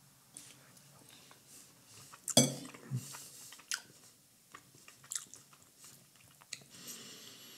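A person chewing a mouthful of soft turkey breast strips in sauce, with small wet mouth clicks. A single sharp click about two and a half seconds in is the loudest sound.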